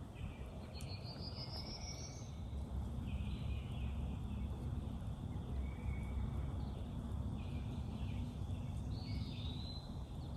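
Morning birdsong in woodland: several short songbird phrases, with a rising trill about a second in, over a steady low rumble.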